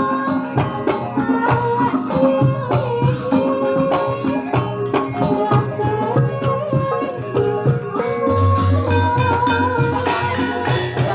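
Javanese gamelan music with a kendang hand drum keeping a steady beat under sustained pitched instruments, and a low tone coming in about eight seconds in.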